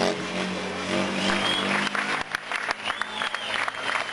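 Spectators applauding, with a motorcycle engine running steadily underneath as the stunt rider holds a wheelie.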